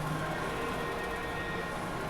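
Casino floor din: slot machines sounding steady electronic tones over a constant background hum.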